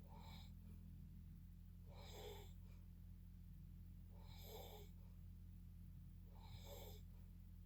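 Faint snoring: four short, rasping breaths, one about every two seconds, over a steady low hum.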